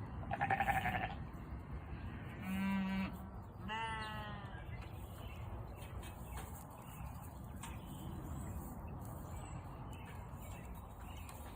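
Belted Galloway cattle calling, three short bawls in the first four seconds or so: the first high-pitched, the next two lower and wavering.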